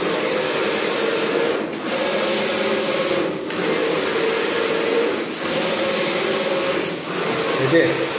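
Flat-bed screen printing machine's squeegee carriage running back and forth along its rail over the screen: a steady mechanical whir that drops briefly about every one and a half to two seconds, once per stroke.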